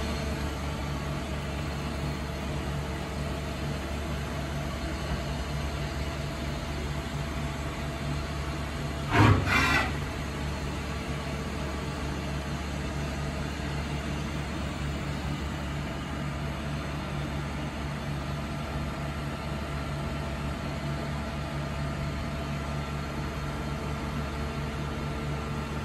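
Okuma MF-46VA vertical machining center powered up and standing idle: a steady low machine hum with several held low tones. About nine seconds in, one short loud noise, under a second long, cuts across it.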